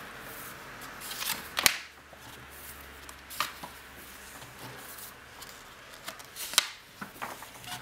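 Glossy pages of a large book being turned by hand: paper rustling and swishing, with a sharp paper flick about one and a half seconds in and another near the end.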